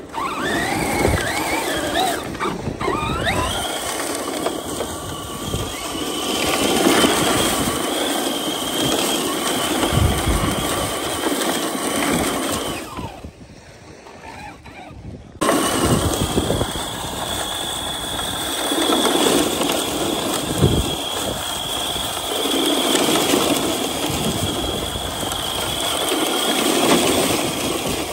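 Arrma Mojave 4S radio-controlled short course truck driving and sliding on beach gravel: the high whine of its brushless motor and drivetrain over the crunch and spray of tyres on gravel and sand. The revs rise in the first few seconds, and the sound drops away about halfway, then comes back suddenly.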